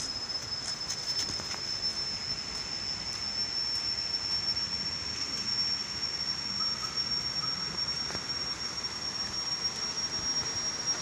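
An insect in the forest gives a steady, high-pitched whine on a single note that creeps slightly upward. Beneath it is the even hiss of a rocky river flowing nearby.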